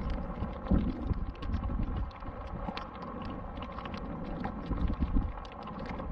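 Wind buffeting the microphone in uneven low gusts, with many light clicks and ticks scattered through it.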